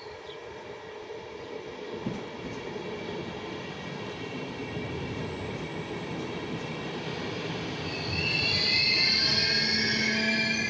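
Trenitalia Vivalto double-deck regional train pulling in alongside the platform, its rumble on the rails building as it approaches. About eight seconds in, a loud high-pitched squeal of wheels and brakes sets in as it slows.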